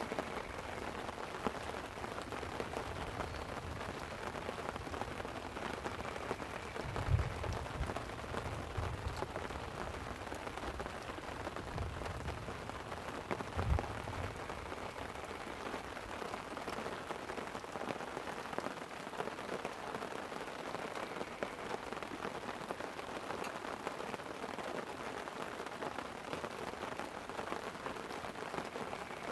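Light rain falling steadily on a tent, with a few short low rumbles of thunder in the first half.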